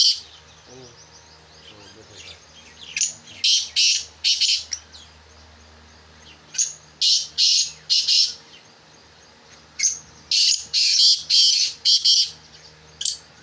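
Caged black francolins calling: loud, harsh series of several clipped notes each, repeated about every three seconds, with quieter gaps between the series.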